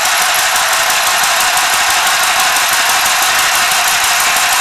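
Handy Stitch handheld sewing machine running continuously as it stitches through fabric: a loud, fast, even mechanical chatter.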